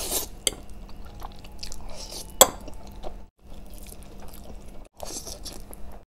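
Close-miked eating sounds: spicy Korean instant noodles slurped and chewed, with wet mouth clicks and one sharp, loud click about two and a half seconds in. The sound cuts out briefly twice.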